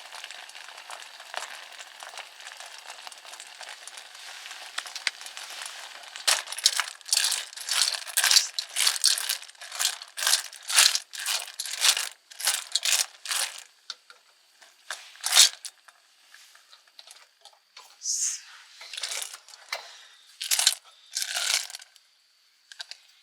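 Steady faint hiss, then from about six seconds in a run of loud crinkling and tearing bursts, about two a second, as plastic packaging is handled and torn open; the bursts thin out to a few near the end.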